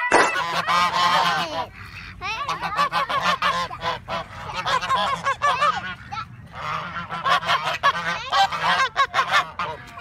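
White domestic geese honking over and over in rapid runs of calls, with a few short breaks between runs.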